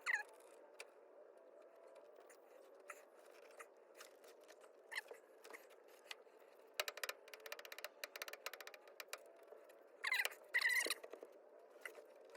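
Faint hand work on truck parts: scattered clicks and scrapes, a quick run of clicks about seven seconds in, and two short squeaks near the end.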